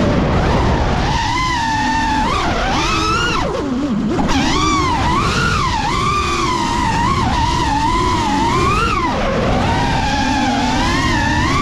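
The brushless motors and propellers of a 5-inch FPV freestyle quadcopter whine, their pitch swooping up and down with the throttle. The pitch dips sharply twice, at about three and a half seconds and about nine seconds. A steady wind rumble runs underneath.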